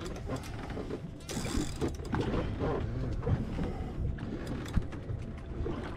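Fishing reel being worked under the load of a large hooked fish: irregular gear and ratchet clicking from the reel over low boat and water noise.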